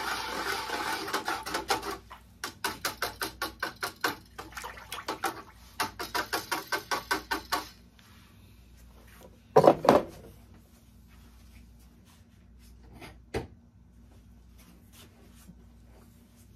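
A wire whisk stirring a bucket of liquid ceramic glaze: a steady wet churning, then quick rhythmic strokes about five a second, which stop a little before halfway. A loud knock follows about ten seconds in, and a faint click a few seconds later.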